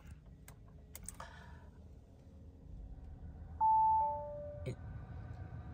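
Audi Q2 instrument-cluster warning chime: a single two-tone ding-dong, a higher note then a lower one, about three and a half seconds in, sounding with the oil change and inspection due service reminder after the ignition is switched on. A few faint clicks come before it.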